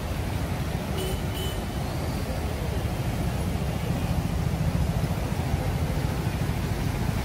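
Floodwater rushing over a road and through a broken bridge: a steady low rumble of fast-moving water. Two short high-pitched chirps sound about a second in.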